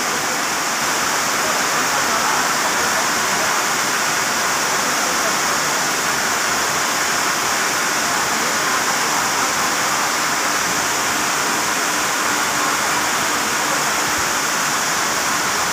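Heavy tropical downpour: rain falling steadily and hard on a sheet-metal shed roof and the yard around it.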